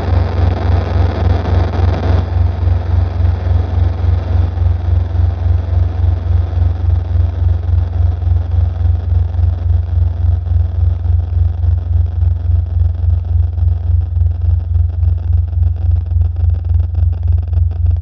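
Electronic soundtrack: a loud, deep bass drone pulsing in a steady rhythm, with a hiss of higher noise over it that thins out about two seconds in.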